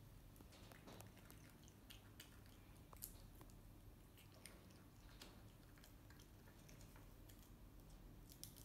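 Faint, scattered little clicks and squishes of a baby macaque chewing and biting pieces of fruit.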